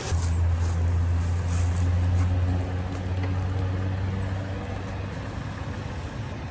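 Toyota 4Runner's engine running steadily at low revs as it crawls along a rough trail, a low hum that fades after about five seconds.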